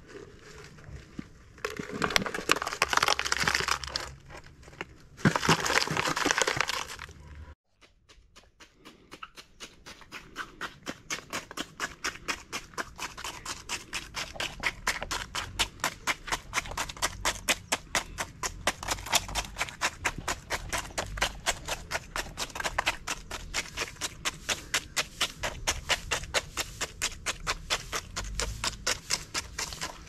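Wet cement being packed into a pot around a wooden post: two spells of scraping and pouring, then a long run of short, even taps, about three a second, as the cement is pounded down with a stick.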